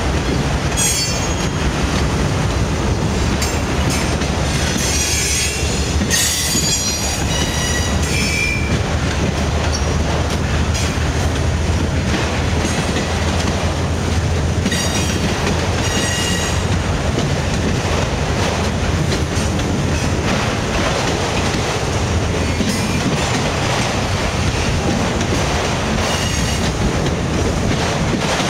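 CSX freight train of autorack cars rolling past: a steady rumble of steel wheels on rail with clacking over the joints. High-pitched wheel squeal comes in stretches, strongest about five to nine seconds in and again around fifteen seconds in.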